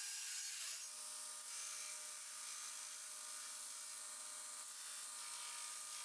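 Belt grinder running with a steel knife blank held against the belt: a steady hiss over a low hum.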